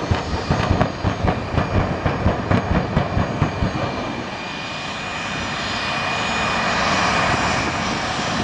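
Two jet dragsters' jet engines running at the starting line. For the first few seconds there are rapid rhythmic thumping pulses, about three a second. These give way to a steady roar that slowly builds.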